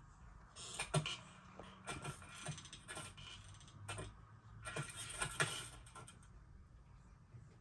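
Cartoon foley sound effects: a run of small clicks, taps and rustles, with brief swishing hisses and two sharper knocks, about one second in and again about five seconds in.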